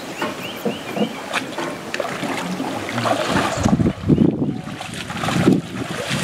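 Wind buffeting the microphone outdoors, growing into heavy gusting rumble a few seconds in. A few faint bird chirps come through in the first second.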